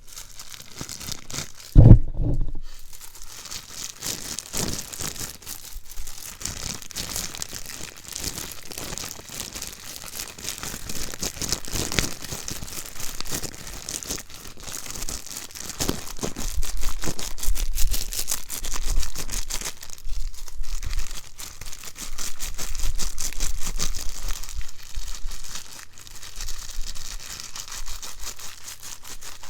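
Crinkling and crumpling close to the microphone, a dense run of fast crackles, with one loud thump about two seconds in.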